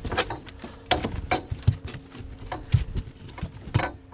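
Irregular taps, knocks and clatters as a fish is handled in a rubber-mesh landing net on a fiberglass boat deck: the net frame, the lure and the flapping fish strike the deck in sharp uneven knocks.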